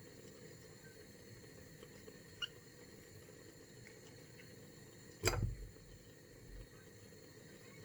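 Quiet kitchen handling noises over a steady low hum: a small click about two and a half seconds in, then a single louder knock with a dull thud a little after five seconds.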